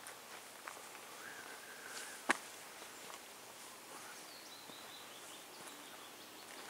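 Faint footsteps along a forest path, with one sharp click a little over two seconds in, and a couple of faint whistled bird calls in the quiet woodland background.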